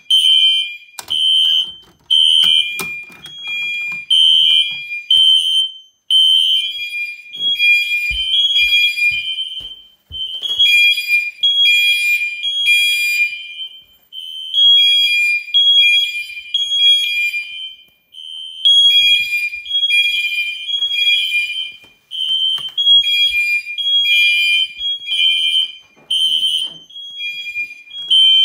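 Fire alarm horn-strobes sounding in alarm after a manual pull station is activated in a system test: a loud, harsh electronic tone that steps back and forth between two pitches, breaking briefly about every four seconds.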